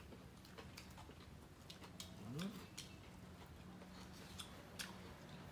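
Faint scattered clicks and taps of chopsticks against rice bowls and plates as two people eat, over a low steady hum.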